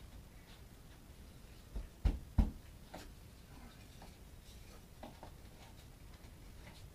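A few sharp knocks, two close together about two seconds in and a fainter one just after, as a wedge is worked into the gap between a pre-hung door's frame and the rough opening to shim it level.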